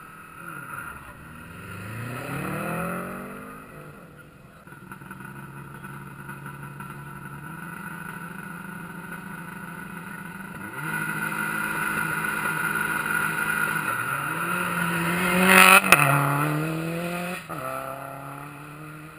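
Rally car engine accelerating hard on a gravel stage, its pitch climbing in steps through the gears. It grows louder as the car comes closer and is loudest as it passes about sixteen seconds in, with a sharp crack at that moment. The engine note then drops as the car goes away.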